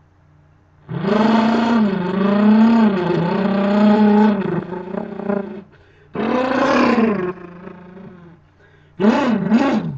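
A person imitating a muscle car engine with his voice: a long rev starting about a second in, dipping and rising in pitch for about three seconds before trailing off, a shorter rev that rises and falls around six seconds in, and two quick up-and-down bursts near the end.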